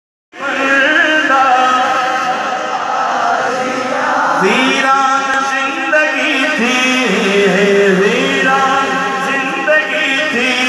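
A male naat reciter singing an Urdu naat into a microphone. The sound is a blend of voices for the first few seconds, then one voice carries long, wavering, drawn-out phrases.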